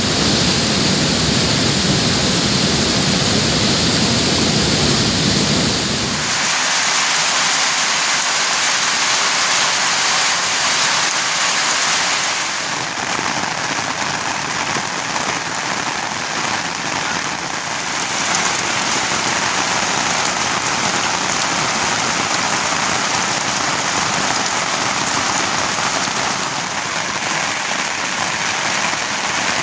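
Heavy rain falling, a steady loud hiss. It sounds deeper and fuller for about the first six seconds, then changes character a few times.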